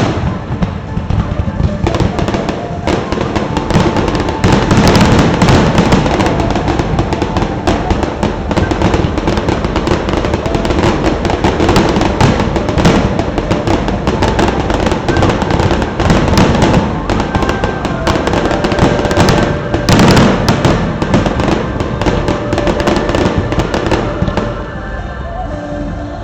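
Aerial fireworks bursting nonstop in a dense barrage of bangs and crackles, with the display's music soundtrack playing beneath, easier to hear near the end when the bursts thin out.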